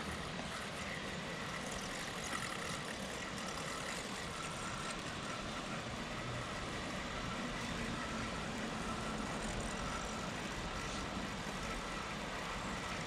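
Steady background rumble of distant road traffic, even throughout with no distinct events.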